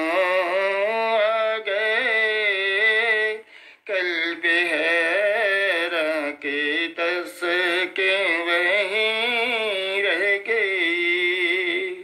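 A solo voice singing an Urdu naat in long, wavering held notes, breaking off briefly a little under four seconds in.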